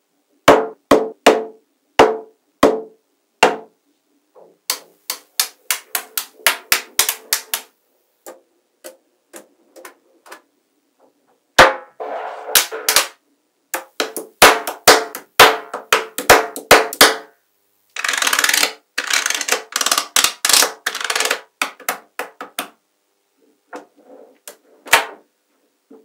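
Small metal magnetic balls clicking and snapping together as rows of them are placed and pressed onto a build. The sharp clacks come in irregular runs, with a couple of stretches of rapid rattling.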